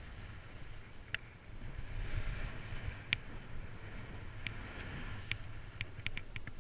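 Skis or board sliding over firm, wind-packed snow with a scraping hiss that swells about two seconds in, over steady wind buffeting on the microphone, with a scatter of sharp clicks that come more often near the end.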